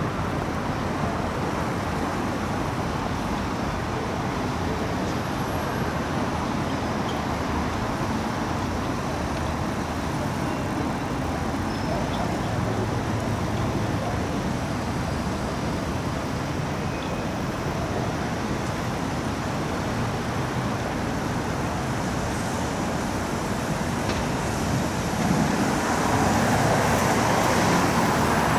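Light city traffic on wet roads: a steady hiss of tyres and engines from passing cars and buses, growing louder near the end as a car passes close by.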